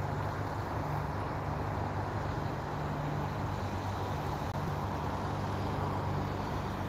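A motor vehicle engine idling with a steady low hum, over a constant wash of outdoor traffic noise.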